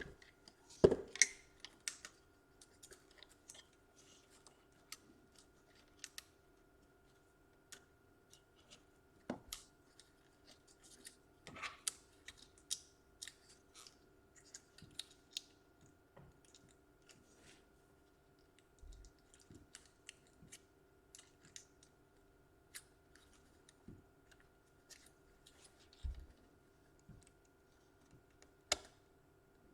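Small irregular clicks, taps and light scrapes as a laptop's plastic and metal parts are handled with small tools during disassembly.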